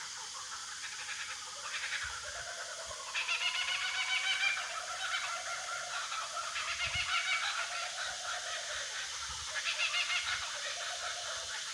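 Kookaburras calling in several rapid, chattering bouts that swell and fade, a young kookaburra squawking along with its parents, over a steady high hiss.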